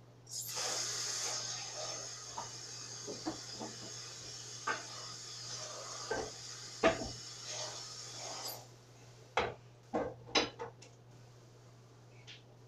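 Kitchen work: a steady hiss starts sharply and cuts off after about eight seconds, with light clinks of dishes and utensils over it. A few sharp knocks of pots or dishes follow, over a low steady hum.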